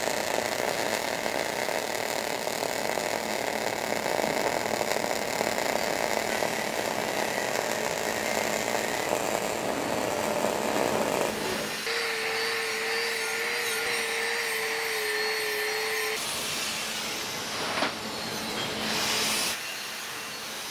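MIG welding arc crackling steadily on a downhill hot pass in a vertical steel groove joint. A bit past halfway the crackle gives way to a steadier, slightly wavering hum for a few seconds, and a short whoosh comes near the end.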